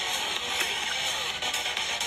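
Music playing, dense and continuous.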